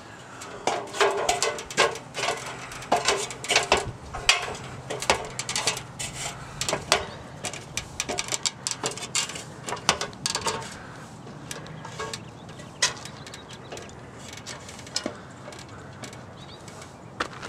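A person climbing an aluminium ladder, with knocks and clanks on the rungs, some ringing briefly, then footsteps crunching across a gravel roof. The steps come thick for the first two thirds and thin out towards the end.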